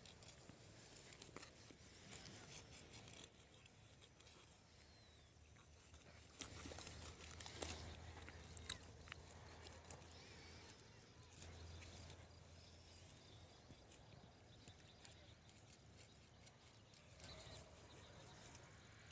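Near silence: faint scattered clicks and rustles over a low hum.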